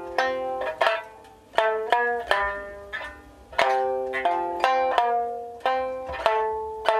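Sanshin, the Okinawan three-stringed lute, played as a slow melody of single plucked notes, about two a second, each ringing out and fading before the next.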